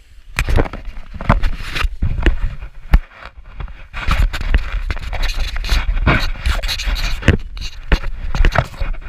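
Knocks and rubbing as the action camera is handled, then from about four seconds in skis scraping over packed snow on a downhill run, with wind rumbling on the camera's microphone.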